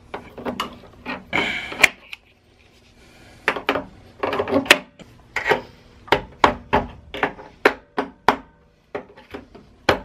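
A mallet hammering on pliers wedged in a hole cut through a water heater's sheet-metal jacket, knocking the jagged metal edges inward: a run of sharp knocks, about two to three a second, beginning about three and a half seconds in. Before it there is a short stretch of metal scraping and clicking.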